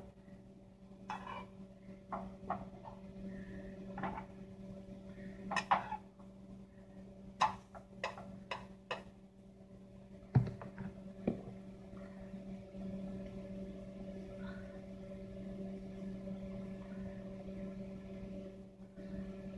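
Ham-and-cheese sandwich frying in butter in a skillet: faint sizzling with scattered sharp pops and clicks, mostly in the first half, over a steady low hum.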